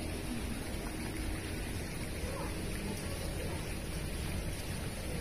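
Steady background noise with faint distant voices in it, and no nearby speech.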